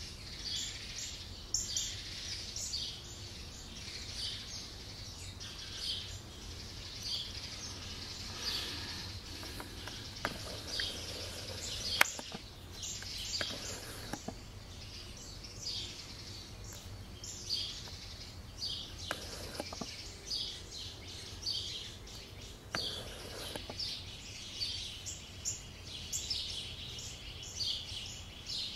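Small birds chirping: many short, high chirps repeating all the way through, over a steady low background noise. A single sharp click about twelve seconds in is the loudest sound.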